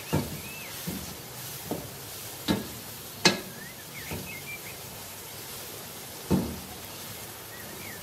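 Wooden spatula knocking and scraping against a non-stick pan while stir-frying diced bell peppers: six knocks about one a second, then one more after a pause, over a steady hiss.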